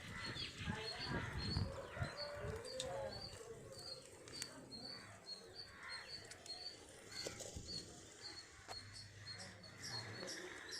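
A bird repeating a short, high chirp about twice a second, with faint voices in the first few seconds.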